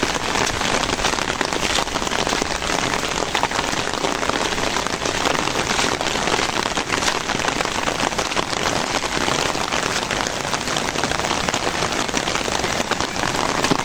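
Rain falling steadily, an even hiss of drops on the wet ground.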